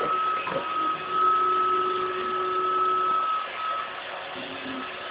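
iRobot Roomba 577 robot vacuum running, its motors giving a steady whine over a rushing noise. The sound drops a little about three and a half seconds in.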